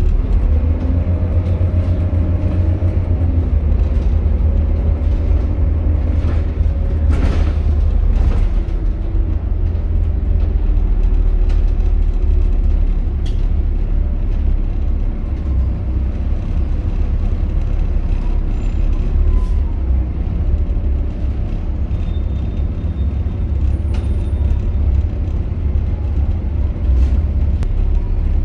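On board a Volvo B7TL double-decker bus under way: its diesel engine and driveline give a steady low rumble, with a faint whine in the middle register and a brief sharp noise about seven seconds in.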